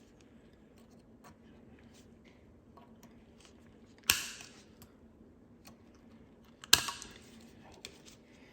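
Tin snips cutting into a metal hose crimp collar: two sharp snips about two and a half seconds apart, with a few light clicks of the tool between them.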